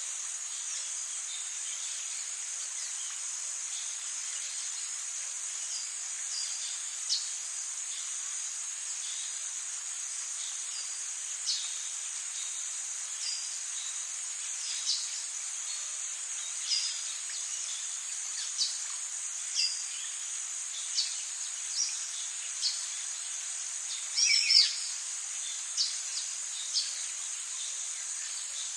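A steady, high-pitched insect chorus drones throughout, with short bird chirps scattered through it and a louder cluster of bird calls near the end. This is tropical rainforest ambience.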